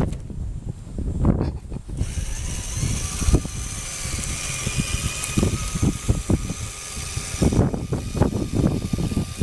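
RC crawler on rubber track units, its small electric motor and gearbox whining steadily as it climbs. The whine starts about two seconds in and fades near the end, with footsteps crunching through dry grass throughout.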